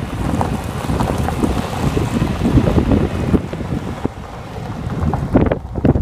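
Wind buffeting the microphone of a phone filming from a moving vehicle: a loud, uneven rumble with crackling gusts that eases briefly near the end.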